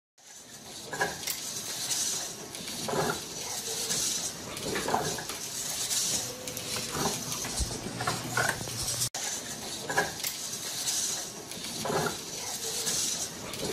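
Servo motors of a plastic-bodied quadruped robot dog buzzing as its legs move, with its plastic feet knocking on a wooden desk every second or two.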